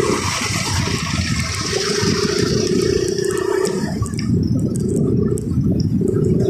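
Motorcycle riding through slow traffic: wind rushing over the microphone on top of the engine's low running note, with the hissy part of the rush easing off about four seconds in.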